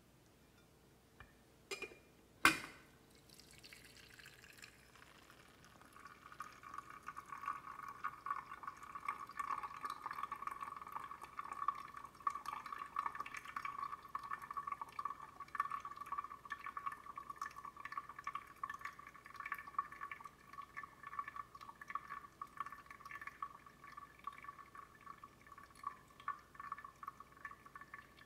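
A Clever Dripper is set down on a glass coffee server with a couple of glass clinks about two seconds in, the second the loudest; setting it down opens its valve, and the brewed coffee then drains through the paper filter into the server in a steady trickle of drips.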